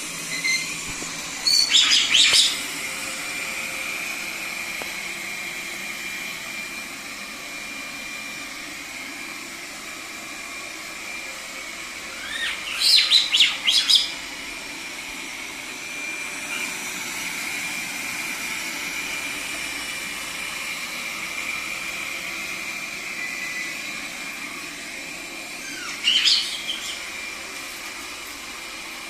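Caique parrot giving sharp, high screeching calls in three short bursts, over the steady whir and high whine of a robot vacuum cleaner running.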